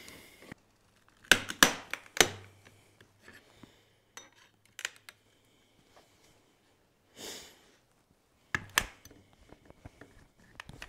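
Sharp metallic clinks and taps of a chisel and a claw hammer against an aluminum bar as a clamped mold is pried open. There are three loud strikes close together early, scattered light clicks, a brief scrape past the middle and another loud strike later.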